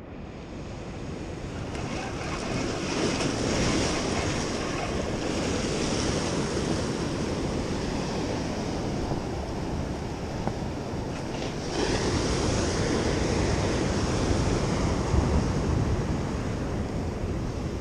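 Ocean surf washing against the boulders of a rock jetty, with wind buffeting the microphone. The surf swells about three seconds in and again around twelve seconds.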